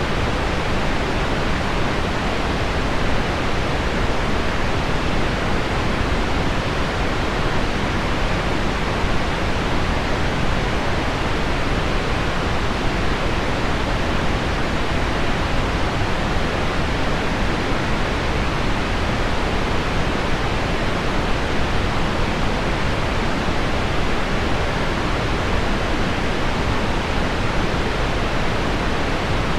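Heavy rain on window glass blended with low pink noise, a steady, even hiss that never changes.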